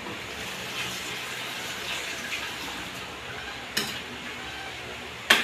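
Kitchen work at a sink and stove: a steady hiss with light clinks of dishes and utensils, and two sharp clacks, the first just before four seconds in and the second near the end.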